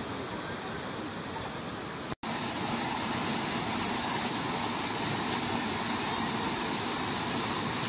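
Water rushing over small stepped cascades in a stone channel: a steady hiss. It cuts out for an instant about two seconds in, and after that the rush is a little louder.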